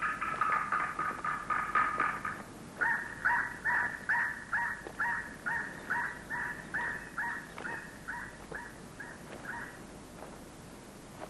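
Sea eagle calling: a fast series of yelping notes, then after a brief pause a longer run of evenly spaced yelps, about two or three a second, that fades out near the end. These are territorial calls of an eagle defending its nest against a rival male.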